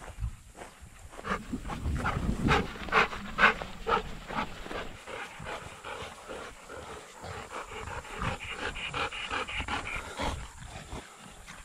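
Golden retrievers panting hard while they play, with the loudest breaths about two to four seconds in and a quicker run of breaths near the end.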